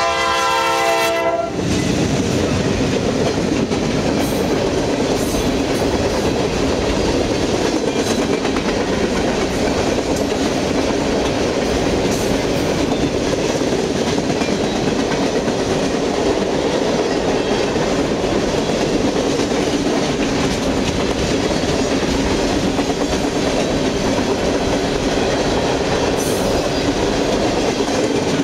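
A CSX freight train's diesel locomotive horn sounds a chord that cuts off about a second and a half in. Then the locomotives and a long string of freight cars roll past at the crossing with a steady rumble and clatter of wheels on rail.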